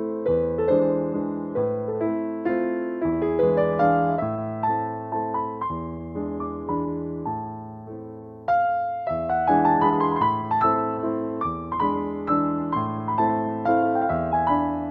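Background music played on piano, a gentle melody of struck notes that each fade away. The notes fade to a lull about eight seconds in, then the playing resumes.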